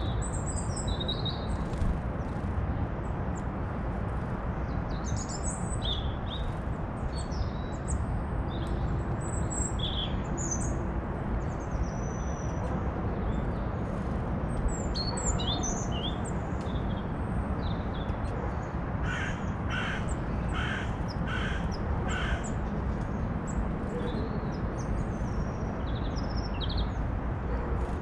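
Wild birds calling outdoors: scattered high chirps and tweets from small birds, and about two-thirds of the way through a crow caws about six times in quick succession. A steady low rumble of background noise runs underneath.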